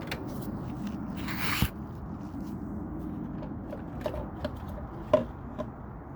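Small plastic clicks and scraping as a turn signal bulb and its socket are handled in the lamp housing. There is a short rush of noise about a second in and a sharper click near the end.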